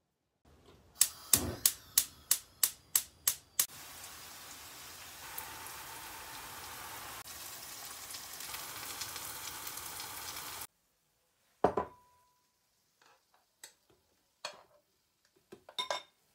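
Diced fennel and bell peppers sizzling steadily in oil in a frying pan, after a quick run of about eight sharp clicks; the sizzle cuts off suddenly. Then a single sharp knock with a brief ring, followed by scattered light clicks as the vegetables are scraped from the pan into a glass bowl.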